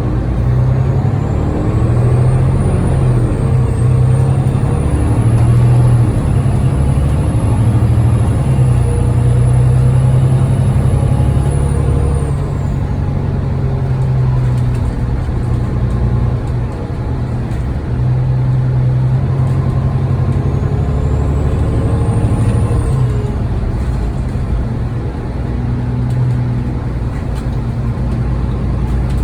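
Diesel engine of an Alexander Dennis Enviro500 MMC double-decker bus (Cummins ISL8.9) running under load with a steady low drone, over which a high turbocharger whistle rises and holds, then falls away about twelve seconds in. A second, shorter turbo whistle rises and drops a little after twenty seconds.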